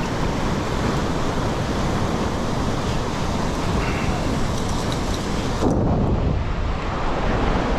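Strong wind buffeting the microphone over heavy surf breaking on the shore, a steady dense rush of noise.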